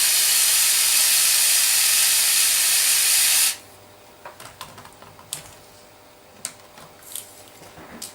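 Steady hiss from the running 3D-printed scale V8 engine unit in the RC crawler, cut off suddenly about three and a half seconds in as it is switched off. After that come a few light clicks and taps.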